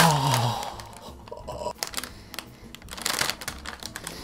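Plastic Oreo package crinkling and rustling as its resealable film is peeled open. It opens with a short man's groan that falls in pitch.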